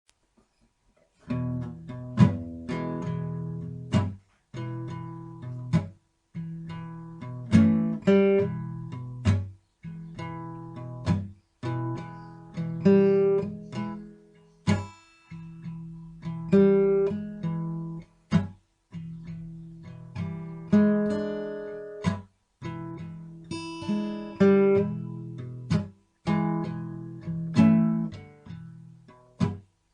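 Background music: acoustic guitar, strummed and plucked chords in a steady rhythm.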